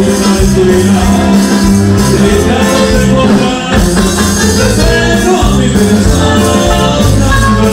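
Loud Latin American dance music with a steady beat, playing for a line of dancers.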